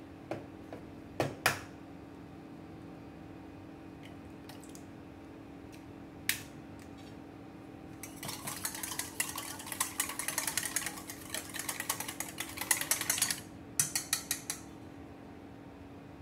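An egg is cracked with a couple of sharp knocks against a stainless-steel bowl. After a pause, a wire whisk beats the egg in a stainless-steel bowl for about five seconds, a fast metallic rattling. A quick run of clicks follows as the whisk knocks against the bowl, all over a steady low hum.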